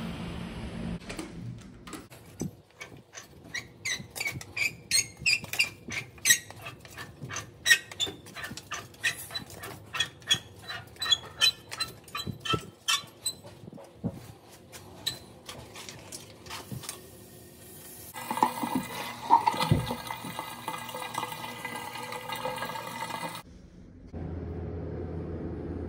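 Rapid sharp clicks and taps, several a second, for about fifteen seconds, then water rushing for about five seconds that cuts off suddenly, followed by a steady low hum.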